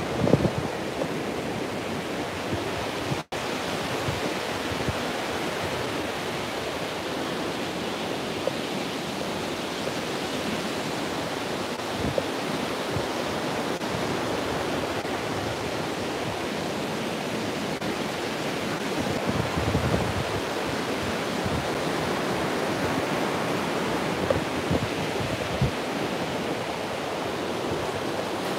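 Ocean surf breaking on a beach, a steady wash of noise, with wind buffeting the microphone in low gusts. The sound cuts out for an instant about three seconds in.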